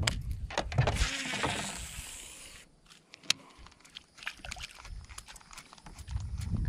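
Baitcasting reel and rod being worked as a topwater walking bait is twitched back across calm water. A short hiss about a second in, then scattered light clicks and ticks, with one sharper click around the middle.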